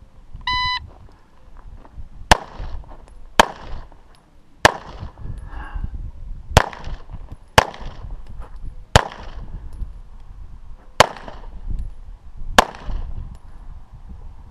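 A shot-timer start beep sounds once, signalling the start of the stage. It is followed by eight single 9mm pistol shots from an EAA/Tanfoglio Witness Elite Limited Pro, spaced about one to two seconds apart, each with a short echo.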